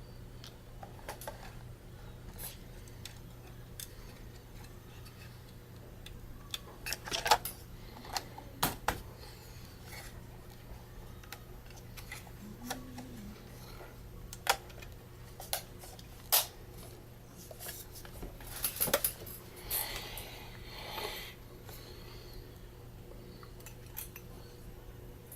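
Scattered sharp clicks and light metallic clinks of small tools and parts being handled while a Canon EOS 60D DSLR is taken apart, with a cluster of clicks and a short rustle near the end, over a steady low hum.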